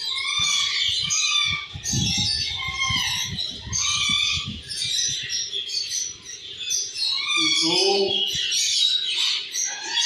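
Many small aviary birds chirping and calling at once in a busy, continuous chorus. Light tapping, a spoon working at the neck of a plastic bottle, runs from about two to five seconds in.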